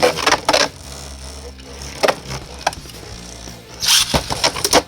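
3D-printed plastic Beyblade tops spinning in a battle stadium, clacking sharply against each other and the stadium walls: a few hits at first, then a rapid run of clashes near the end.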